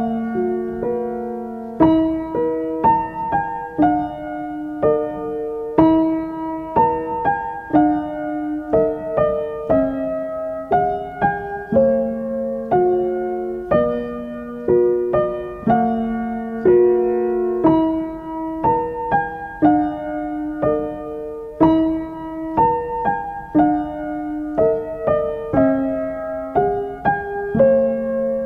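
Background piano music: a gentle melody of single notes, about two a second at an even pace.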